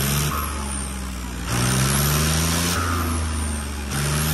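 John Deere tractor's turbocharged diesel engine revved up and let back down in repeated bursts, about three rises and falls. A brief hiss comes as each rev falls away: the turbo's whistle on throttle lift, which is being tested.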